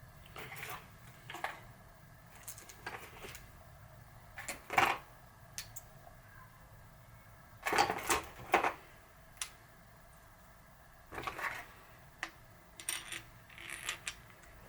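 Small metal parts and tools being handled while a sealed bearing is fitted into a bicycle freehub body: scattered clicks and clinks, with louder knocks about five and eight seconds in.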